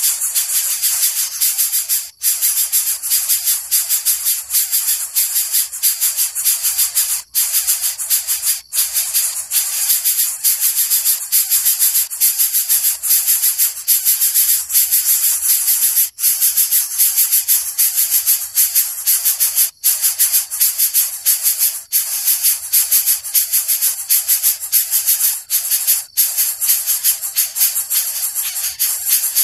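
Pet coucal making a continuous raspy, hissing rattle of rapid short pulses, breaking off briefly now and then; the title calls it noisy even with food in its mouth.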